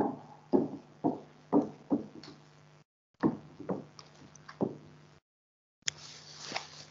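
Footsteps on a stage floor, sharp knocks about two a second, as two people walk to and from a lectern. The sound drops out twice briefly, and a soft rustle follows near the end.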